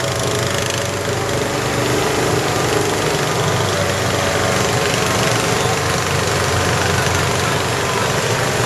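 Off-road buggy engine running steadily while the buggy drives along, heard from on board with a constant rush of road and wind noise.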